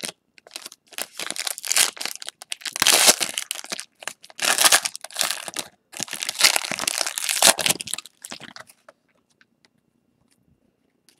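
Foil wrapper of a Panini Playbook football card pack crinkling and tearing as it is pulled open by hand, in several rustling bursts, then going quiet near the end.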